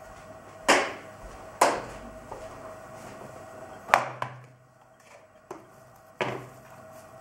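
Sharp wooden knocks and bangs from someone rummaging through drawers and cupboards: four hits a second or two apart, the third a quick double knock.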